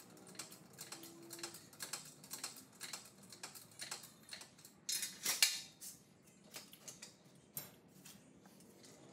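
Faint, irregular light metal clicks and taps, a few a second, with a brief louder scrape about five seconds in, as a hydraulic engine hoist lifts a 170 cubic-inch inline-six engine out of the car's engine bay.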